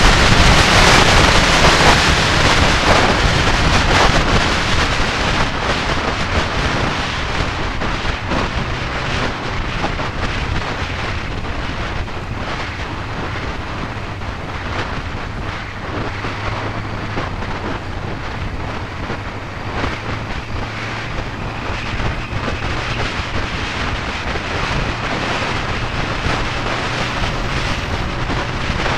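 Wind rushing over the microphone of a moving 1999 Yamaha YZF-R6, with the bike's inline-four engine running steadily underneath. The wind noise is loudest at first and dies down over the first dozen seconds, leaving a steady low engine note more plainly heard.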